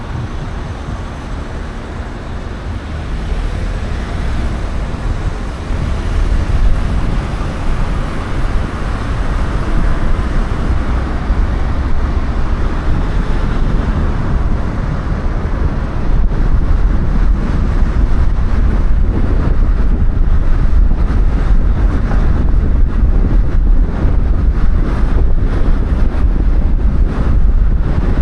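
Car driving, with a deep road and wind rumble that grows louder over the first several seconds and then holds steady.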